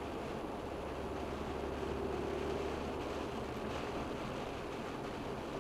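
Car driving on a rain-soaked road, heard from inside: a steady hiss of tyres on wet asphalt and rain on the windscreen, with a low rumble underneath.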